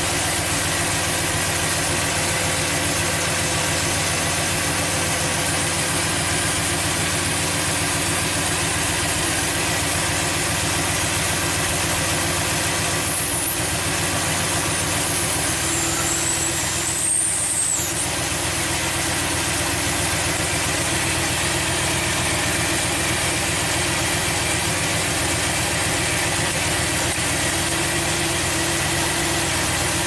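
A 1998 Chevy Silverado 2500's 5.7-litre V8 idling steadily at about 800 rpm. The idle stays high instead of dropping because the engine is sucking air through a leaking intake manifold gasket via the crankcase.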